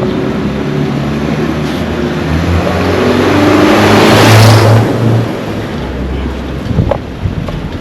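A motor vehicle driving past close by: engine and tyre noise build to a peak about four seconds in, then fade.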